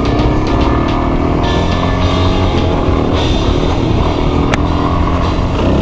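Dual-sport motorcycle engine running under steady throttle while riding through sand, with a few knocks from the bike over rough ground. The engine note dips and wavers near the end.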